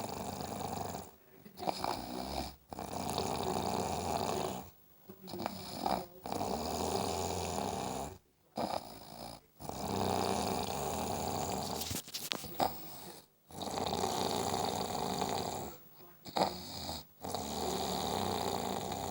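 A person snoring in sleep. Long snores of about two seconds alternate with shorter breath sounds, in a cycle that repeats about every four seconds.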